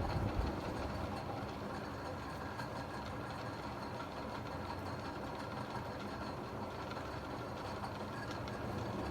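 A 1910s Century 36-inch oil-bath ceiling fan running steadily on high speed: a pretty loud, even hum with no change in speed.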